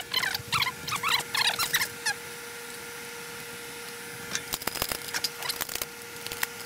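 Rapid high squeaks of metal parts being worked by hand for the first two seconds, over a steady faint hum. A few sharp clicks and knocks follow about four to five seconds in, as a floor jack and its handle are handled on a concrete floor.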